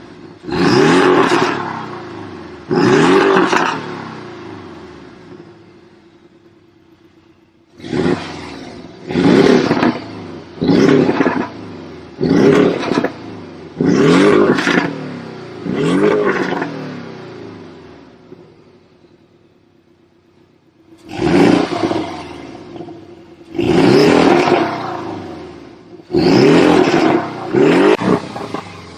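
Porsche 718 Boxster engine revved repeatedly: about a dozen sharp throttle blips in three groups, each rev falling back to idle, with two quieter lulls between the groups.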